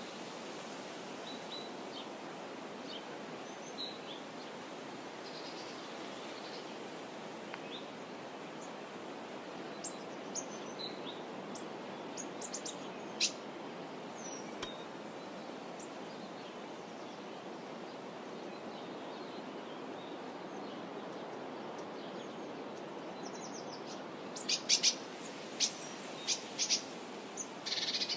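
Small birds chirping here and there over a steady background hiss, with a burst of sharp, louder chirps near the end.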